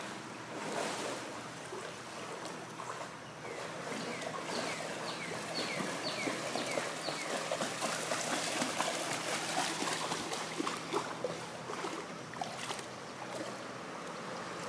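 Dog swimming and then wading through shallow river water with a stick in its mouth. The water laps and splashes in small, irregular bursts. A run of short, high, falling chirps sounds a few seconds in.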